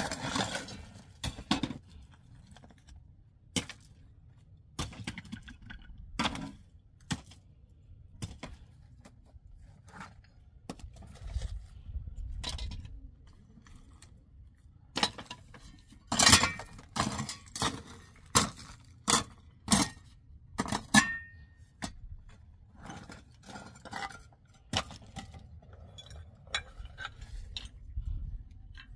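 Irregular sharp clinks and knocks of hard objects being set down or struck, louder and closer together through the middle, one leaving a brief ringing tone.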